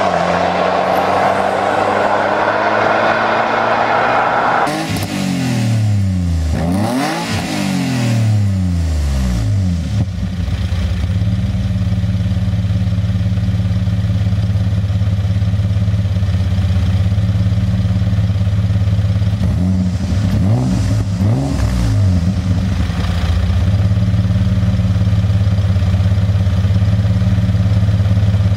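Alfa Romeo 156 engine revved in several quick blips, its pitch sweeping up and falling back, then settling into a steady idle, with one or two short blips again past the middle.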